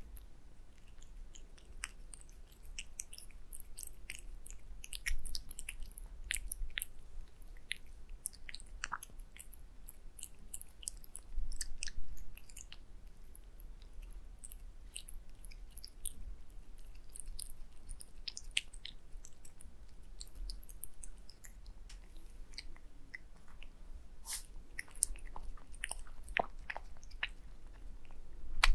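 Domestic cat eating wet cat food up close: steady wet chewing and smacking, made of many small quick clicks, with a couple of louder bites.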